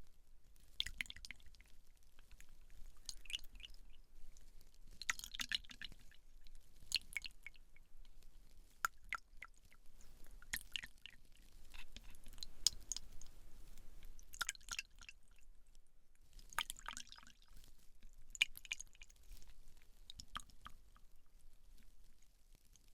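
Fingers working a wet, sticky hair-care gel over hair and scalp. Quiet crackling squishes come in slow passes every couple of seconds.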